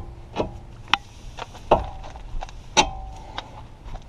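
Metal hand tools clinking and knocking on a car's front suspension parts: about six sharp, irregular metallic knocks, several leaving a short ring.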